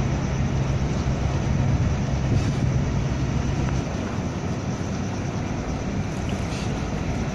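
Low steady drone of ship and tugboat engines as a bulk carrier is pushed in to berth, over wind noise on the microphone; the deepest part of the hum drops away about four seconds in.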